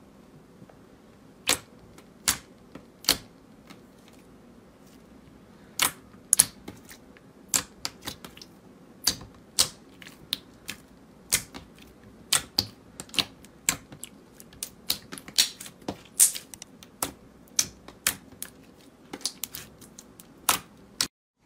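Clear pink slime being pressed, squeezed and folded by fingers, giving sharp irregular clicks and pops, a few at first and then coming thick and fast from about six seconds in.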